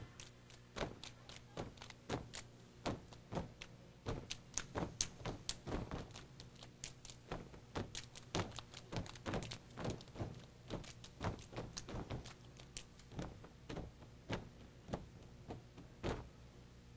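Sorority step team stepping: a long run of sharp unison stomps and hand claps in an uneven, syncopated rhythm, two to four hits a second, stopping about a second before the end.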